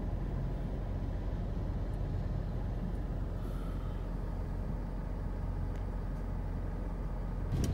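Steady low drone of a car's engine and road hum heard from inside the cabin of a Mitsubishi Pajero Sport as it idles and creeps forward in slow traffic.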